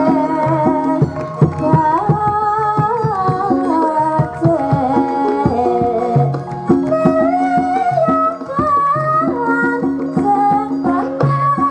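Javanese gamelan music: steady ringing metallophone tones and frequent drum strokes, with female sindhen voices singing a wavering melody over them.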